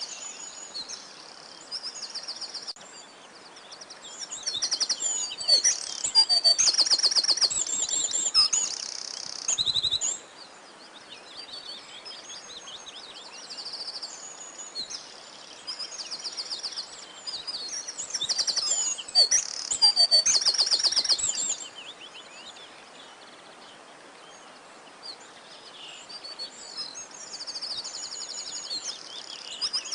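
Several songbirds singing, with high chirps and rapid trilled phrases that swell into two louder stretches, a few seconds in and again past the middle, over a faint steady hiss.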